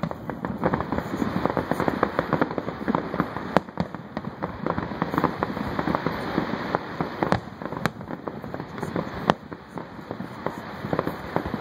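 Fireworks display: bursting shells giving a dense, continuous crackle of many small pops, with a few sharper bangs standing out through it.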